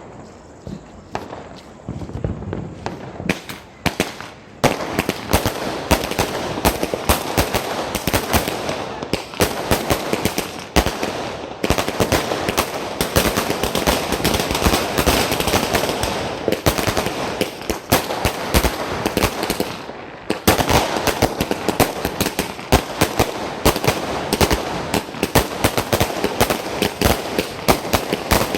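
Standard Fireworks 'Speed 200' firecracker going off in a long, rapid run of sharp bangs, many per second, in a machine-gun-like rattle. The cracks start about three seconds in and keep going, with a brief lull about two-thirds of the way through.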